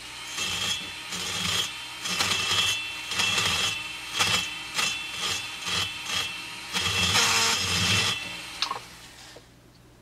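Corded rotary tool with a burr grinding the edge of a transfer port in a chainsaw cylinder, in uneven strokes over a steady high motor whine, stopping near the end.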